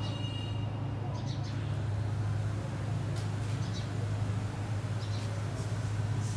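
A steady low hum of street traffic, with a few short faint high chirps scattered through it.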